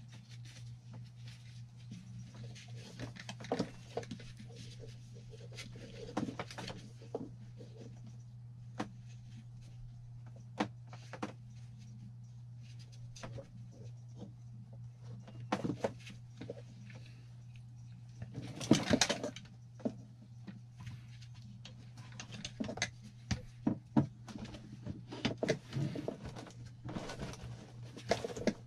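Scattered clicks and knocks of hand tools and metal parts being handled, with a denser rustling burst about two-thirds of the way through, over a steady low hum.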